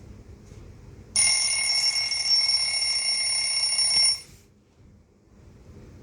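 Xiaomi Redmi 13C phone speaker playing a ringtone preview: a steady, high-pitched electronic ringing tone that starts about a second in and stops abruptly about three seconds later.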